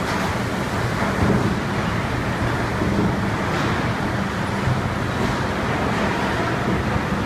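Magaldi Superbelt steel-pan conveyor running, carrying rough metal castings: a steady mechanical noise with a low hum and a few faint knocks.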